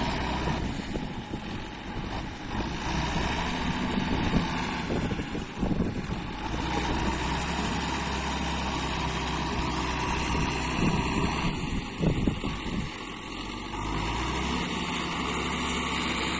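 Diesel engine of a Belarus MTZ tractor running, its revs rising and falling, while the tractor is bogged down in a waterlogged field and being pulled out.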